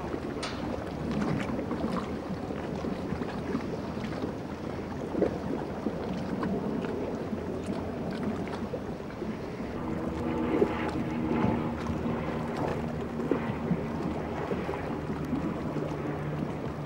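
Boat engines running at the quayside, with wind on the microphone. A steadier engine hum comes in about ten seconds in.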